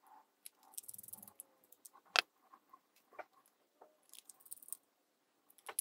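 Small precision screwdriver turning tiny screws into a CNC aluminium case, with faint scrapes and small metal clicks and one sharper click about two seconds in.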